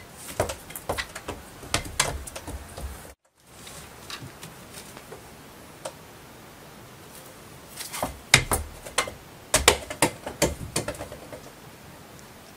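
A cat handling a small toy basketball and a miniature hoop on a cat tree: irregular sharp clicks and knocks, busiest in the first three seconds and again near the end, with a quieter stretch between. The sound drops out briefly about three seconds in.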